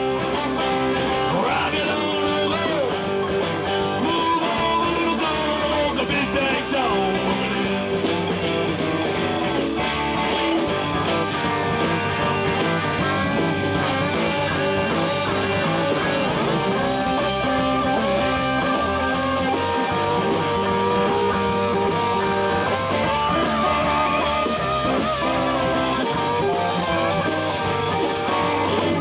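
Live band playing a blues-rock instrumental break: electric guitar lead with bending notes over bass and drums.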